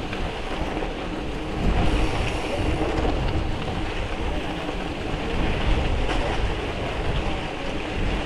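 Gravel bike tyres crunching over a loose gravel road at riding speed, with wind buffeting the microphone; it gets louder about two seconds in.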